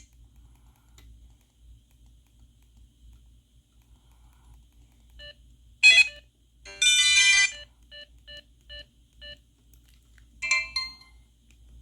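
Electronic tones from a Samsung SGH-T629 phone's speaker. After about five seconds of faint hum, short snippets of tones come through: a brief burst, a short chime-like block of several tones, a run of five quick beeps, then another short burst near the end.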